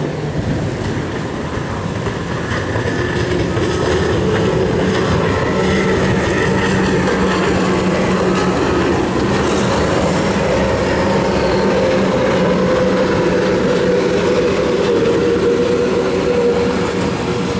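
Outboard engines of racing powerboats running at speed, a steady drone whose pitch drifts slightly as the boats run the course.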